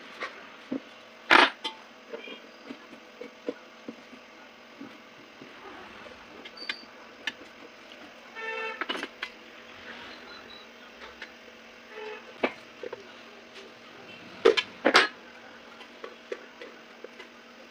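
Scattered sharp clicks and knocks of metal and plastic parts being handled and fitted on a mixer grinder jar, loudest once near the start and twice in quick succession near the end. A short horn-like toot sounds about midway.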